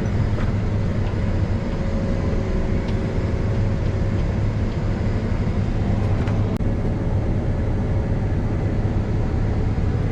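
Combine harvester engine running steadily with a constant low hum.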